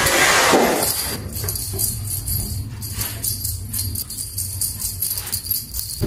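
Background music with a jingling, bell-like sound. A brief rustling noise rises over it in the first second.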